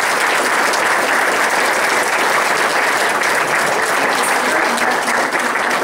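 An audience applauding, a dense, steady clapping.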